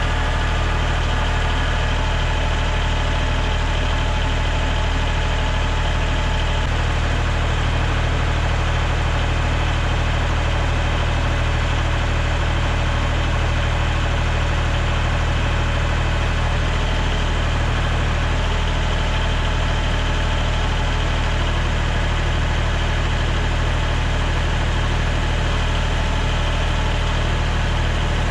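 Tractor engine running steadily at a low, even speed, as when the front-end loader is held while concrete is dumped from its bucket.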